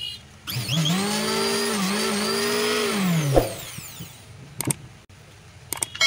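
Dongcheng handheld electric planer's motor switched on, spinning up quickly, running steadily for about three seconds, then switched off and winding down. It is a test run after the bearing replacement. A few light handling knocks follow.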